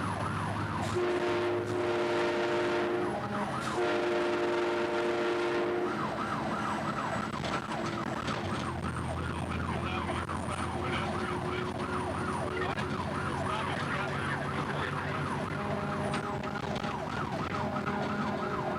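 Fire rescue truck's siren on a fast, repeating yelp, with the truck's multi-tone train horn sounding over it in long chord blasts, twice in the first six seconds and again near the end.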